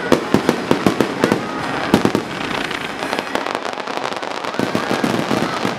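Fireworks display: a rapid volley of aerial shell bursts, many sharp bangs a second, most tightly packed in the first two seconds, over a steady hissing crackle.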